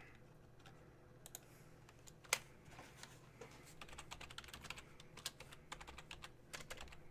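Faint typing on a computer keyboard: irregular key clicks that come thicker and faster in the second half, with one sharper click a little over two seconds in.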